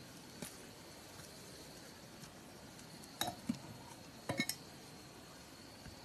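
Wooden poles knocking against each other as they are laid in place: one light knock, then two pairs of sharp clacks, about three seconds in and again a second later.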